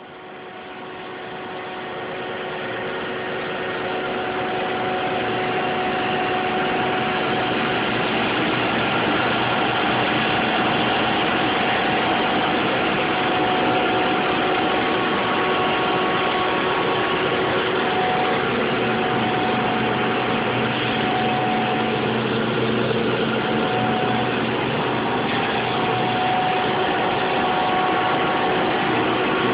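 Rotrex turbo compressor running steadily on steam in a high-temperature heat pump: a dense, even mechanical rush with a few faint steady whining tones. It swells over the first few seconds, then holds level.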